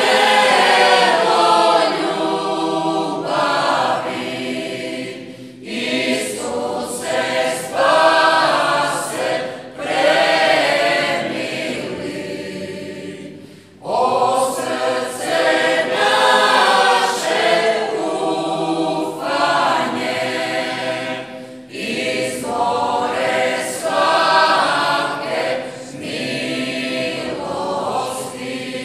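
A choir singing a Marian folk hymn in short phrases, with a brief pause about halfway through.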